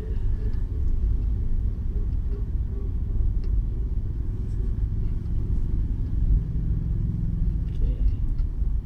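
Steady low rumble of a 2020 Daihatsu Xenia driving slowly, engine and tyre noise heard from inside the cabin.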